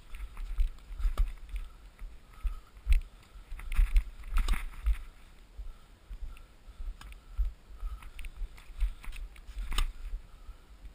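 Irregular low rumbling buffets of wind and movement on a body-worn action camera's microphone, with a few sharp knocks, the clearest near the end.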